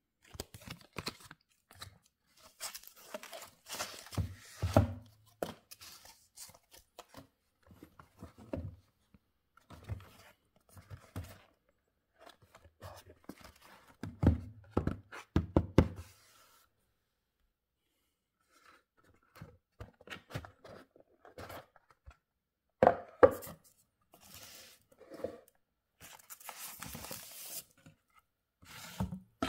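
Handling of a paperboard watch box and printed card: scattered taps, clicks and scrapes of stiff cardboard, with a short quiet gap a little past the middle and one loud knock after it. Near the end comes a longer rustling slide as the fold-out box is opened.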